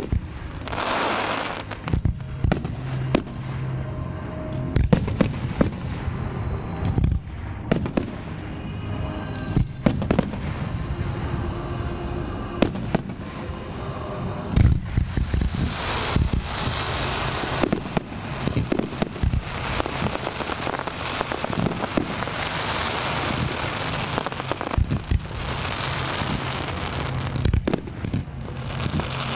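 Fireworks display: aerial shells bursting in a rapid, uneven run of sharp bangs. From about halfway through, a dense crackling hiss fills the gaps between the reports.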